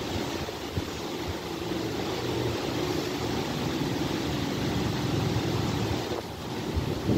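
Distant thunder in a slow, low rumble that swells gradually over several seconds, eases briefly near the end, then starts to build again.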